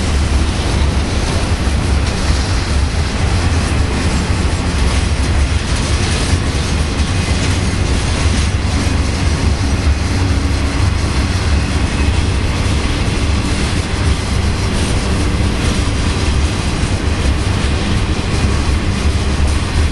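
Boxcars of a Union Pacific manifest freight train rolling steadily past, their steel wheels rumbling and clattering on the rails.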